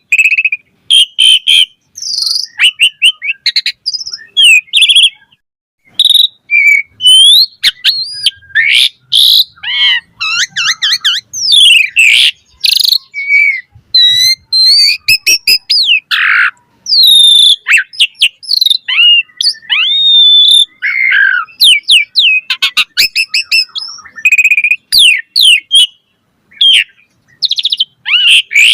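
Asian pied starling singing a fast, varied song of whistles, chirps and trills, broken by a couple of short pauses.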